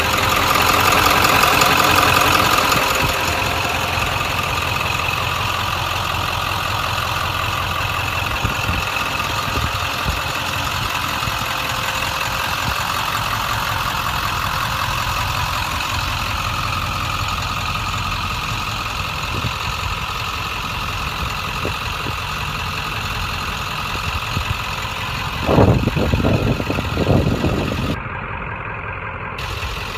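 A 1997 Ford F-350's 7.3 L Powerstroke V8 turbo diesel idling steadily. A few low thumps come through near the end.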